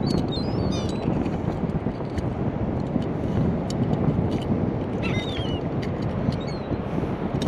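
Steady roar of surf with wind buffeting the microphone on an open beach, with a few short high chirps and scattered light clicks over it.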